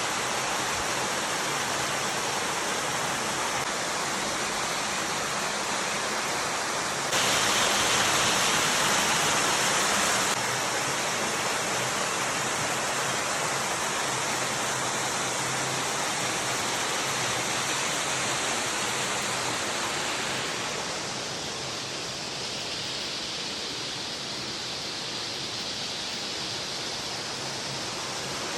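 Running water from a spring flowing out of a cave: a steady rush of water. It grows louder for a few seconds about seven seconds in, then eases, and is a little softer from about twenty seconds in.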